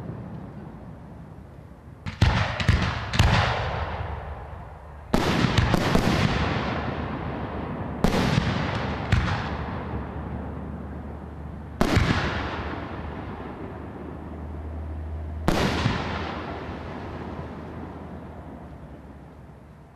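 Aerial fireworks shells bursting: a string of sharp bangs a few seconds apart, some in quick pairs, each trailing off over a second or two.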